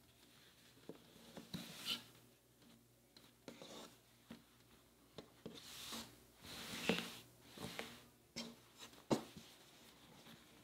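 Children's cotton clothes being folded by hand: faint fabric rustling and rubbing in short, irregular swishes, with a couple of sharper taps about seven and nine seconds in.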